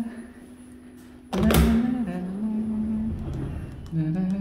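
A man humming a tune in long held notes, with a loud clunk about a second and a half in as the front door with a digital lock is opened.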